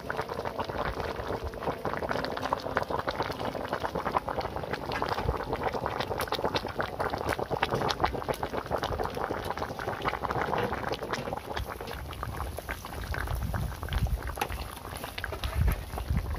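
Coconut-milk fish curry with green beans bubbling at a rolling boil in a wok, a steady dense crackle of bubbles. A few low thumps come in near the end.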